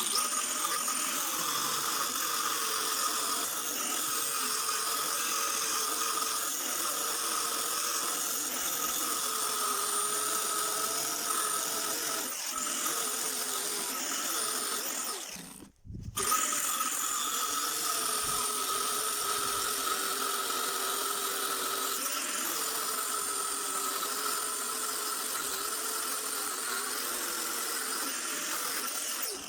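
Angle grinder running as it cuts through the housing of a refrigerator compressor, a steady whine with a wavering lower tone under load; it cuts out briefly about halfway through and starts again.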